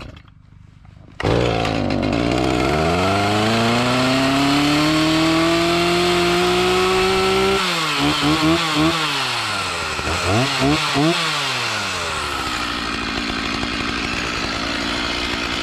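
Stihl MS 290 two-stroke chainsaw firing up cold about a second in, after sitting outside unstarted all winter. Its engine pitch climbs steadily for several seconds, then a few quick throttle blips, then it settles into a steady idle.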